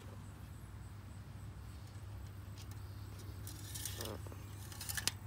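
Engine oil dipstick being handled and drawn out of its tube: light metallic scraping and clicks about three and a half seconds in and again near the end, over a steady low hum.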